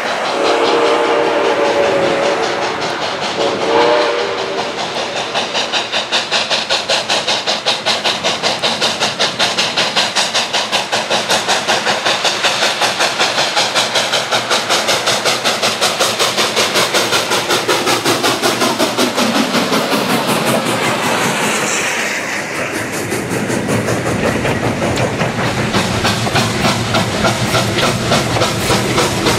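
Steam locomotive sounding two blasts on its whistle, the second shorter, then working with a steady rapid rhythm of exhaust chuffs and hissing steam.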